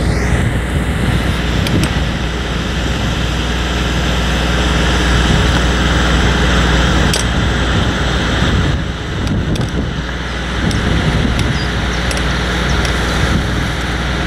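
Mini excavator's diesel engine running steadily, a low even hum, with a brief dip in level about nine seconds in.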